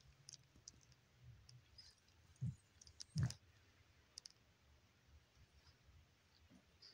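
Near silence with faint scattered clicks and two soft thumps, about two and a half and three seconds in.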